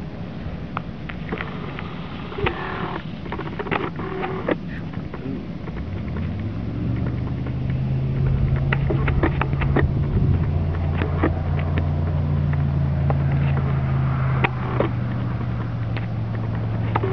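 A motor running with a steady low hum that sets in about six seconds in, over scattered sharp clicks and scuffs.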